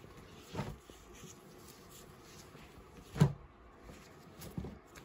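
Handling noise as mesh basketball jerseys are moved and flipped over: three short soft bumps, one about half a second in, the loudest and sharpest about three seconds in, and a softer one near the end.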